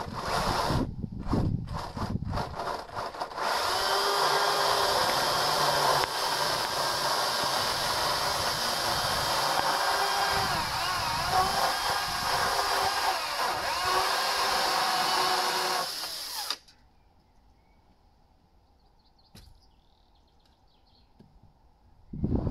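A handheld chainsaw cutting leylandii freehand, releasing the last part of a re-saw cut in a milled slab. A few short revs come first, then about thirteen seconds of steady cutting whose pitch wavers under load, and the saw stops abruptly.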